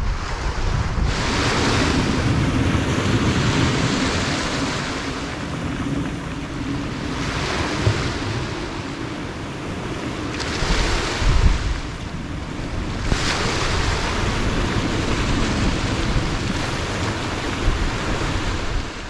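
Small waves breaking and washing up over a shingle beach, the hiss of the wash surging every few seconds, with wind rumbling on the microphone.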